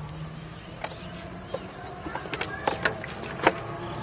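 Plastic bottle handled by hand over a basin: a string of sharp clicks and crackles, busiest about two to three and a half seconds in.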